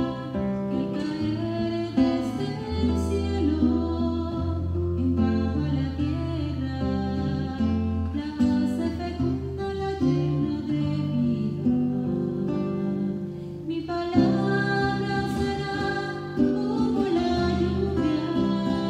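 A woman singing a worship song to acoustic guitar accompaniment.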